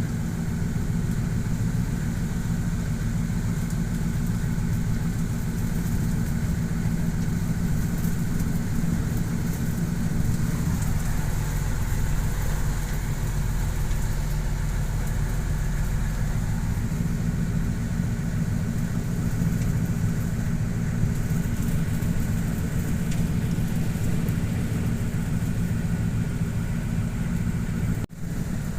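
Boat engine running steadily at low revs under a steady hiss. The sound drops out briefly near the end.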